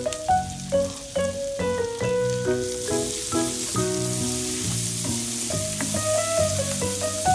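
Food sizzling as it fries in a pan, the sizzle growing louder about a third of the way in, over background music with a melody.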